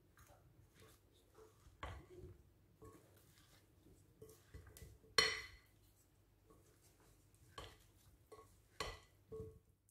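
Wooden spoons stirring flour-coated raw potato strips in a glass bowl: soft scrapes and taps throughout, with one sharp knock against the glass about five seconds in that rings briefly.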